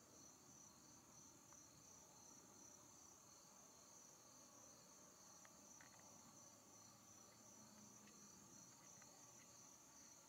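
Faint, steady chorus of insects, a high pulsing trill, over an otherwise near-silent quiet.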